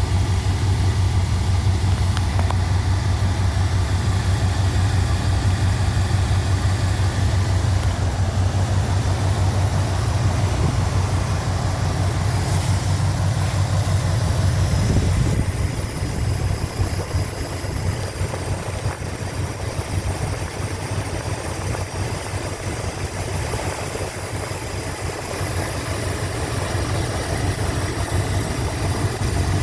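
1987 Chrysler Fifth Avenue's 5.2-litre V8 idling steadily, with no lifter tick now that new lifters and exhaust manifold gaskets are in. The low engine note changes and drops slightly about halfway through.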